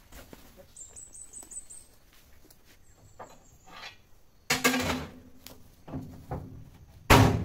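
Heavy slabs of raw rubber landing in the steel bed of a truck as they are heaved aboard. Each lands with a sudden loud thud and a brief low ring: one about halfway through, a smaller one after it, and a very loud one near the end. Before them a bird chirps briefly in a high, quick series.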